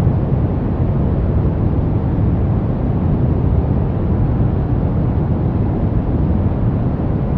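Brown noise: a steady, even deep hiss, strongest in the low end and fading away toward the highs, with no changes or events.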